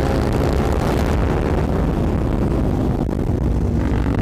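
Loud, steady running of motorcycle engines through aftermarket performance exhausts, one bike or both ridden together.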